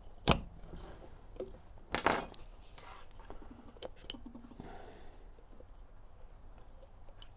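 Hands handling a small speaker's plastic woofer enclosure and its wire connector: a sharp click just after the start, another click with a brief rustle about two seconds in, then faint ticks and rubbing.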